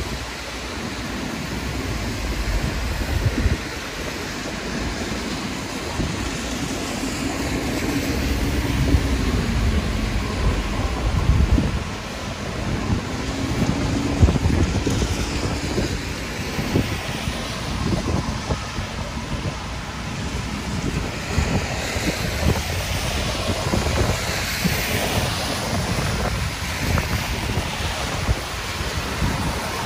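Wind gusting against the microphone over a steady wash of heavy rain and road traffic on a bridge. A low vehicle tone rises and falls twice in the middle.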